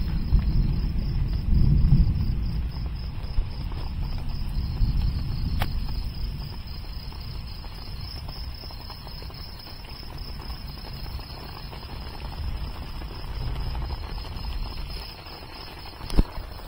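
Night insects chirping in a steady, high, finely pulsing trill, over a low rumble that is loudest in the first few seconds and then eases.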